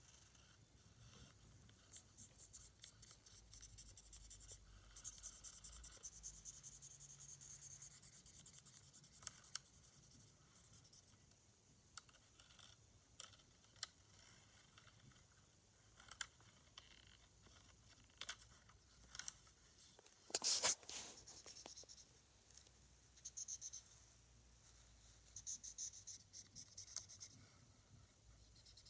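Faint scratching and rubbing with scattered light clicks, and one louder scrape about two-thirds of the way through.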